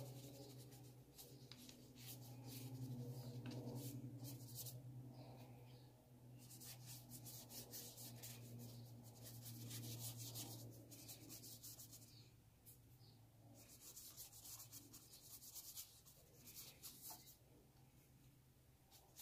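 Paintbrush rubbing acrylic paint onto sketchbook paper in spells of quick, faint scratchy strokes, over a steady low hum.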